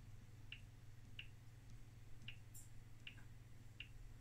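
Near silence: faint, short ticks a little more than once a second over a low steady hum, from a Solartron Schlumberger 4922 radio code analyser that has just been powered up.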